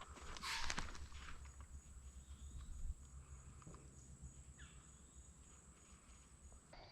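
A deer's alarm snort: one short, sharp blast of air about half a second in, followed by faint rustling and a thin steady insect buzz.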